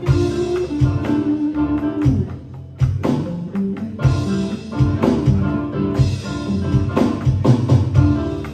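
Live instrumental band jam: electric keyboard, electric guitar, bass guitar and drum kit playing together over a steady beat. About two seconds in the drums drop out briefly and the music falls quieter, then the full band comes back in just before the three-second mark.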